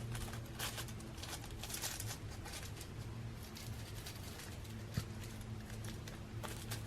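Soft rustling and light ticks of a hoodie and its tags being handled, over a steady low hum, with one sharper click about five seconds in.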